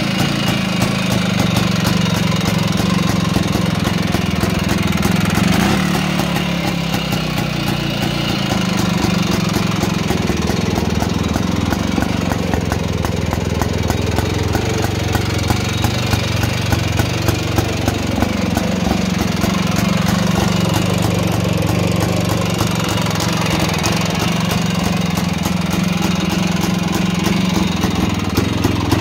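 Jawa 250 type 353's single-cylinder two-stroke engine idling steadily. Its speed sags briefly about a quarter of the way through and picks up a little past halfway.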